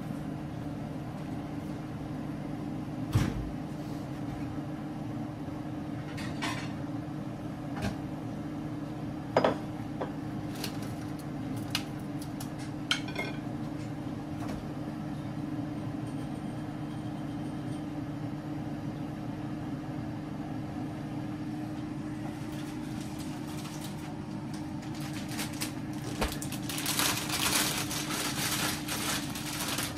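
Kitchen dishes and utensils clinking every few seconds over a steady low hum, with a longer spell of clattering near the end.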